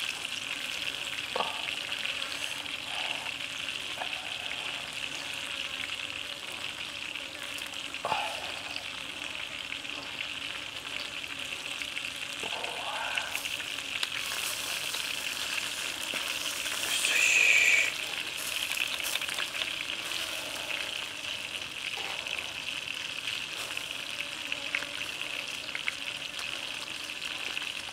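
Sauce-basted chicken wings on stick skewers sizzling over smoking charcoal embers, with a steady hiss and a few faint knocks. Past the middle the sizzle briefly gets louder, as sauce hits the hot coals.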